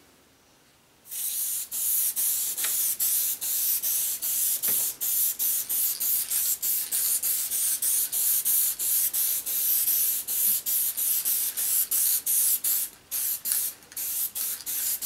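Aerosol can of spray adhesive hissing as it coats the back of a paper pattern. The hiss starts about a second in and runs on with brief dips several times a second, then breaks into a few short bursts near the end.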